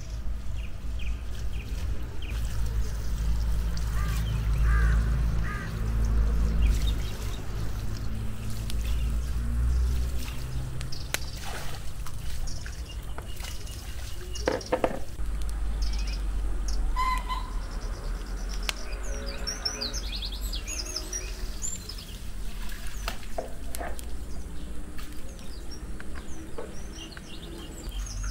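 Water from a garden hose pouring into a plastic bowl and a metal colander of chopped vegetables as they are rinsed, with birds chirping.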